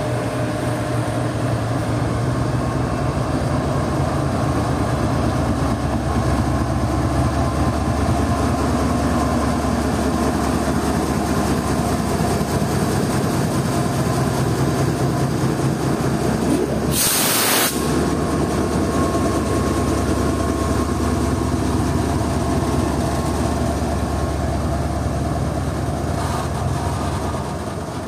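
GEU-40 diesel-electric locomotive running steadily as it pulls a container freight train away, with a continuous engine drone and the rumble of the wagons rolling past. About seventeen seconds in comes a short, sharp burst of hissing air.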